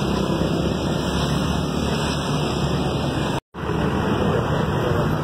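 Loud steady outdoor background noise with a low rumble, broken by a brief dropout a little past halfway before the same noise carries on.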